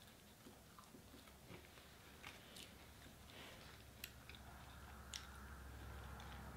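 Faint chewing and biting sounds of someone eating a fast-food burger, with scattered soft mouth clicks.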